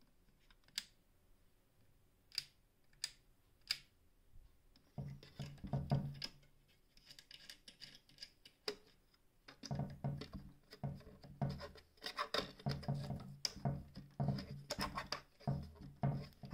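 Controls of a Singer 449 sewing machine being worked by hand. There are four sharp clicks in the first four seconds. From about five seconds in come repeated bouts of scraping and clicking as the stitch-length lever and the panel controls are moved.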